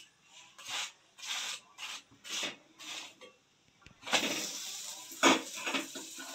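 A flat metal spatula scrapes across a puran poli on a hot iron tava in about seven short strokes, spreading ghee. About four seconds in a steady sizzle starts, and two quick metal clinks follow.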